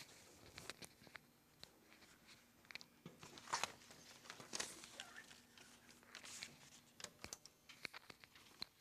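Near silence with faint, scattered rustles and clicks of papers and small equipment being handled at a lectern.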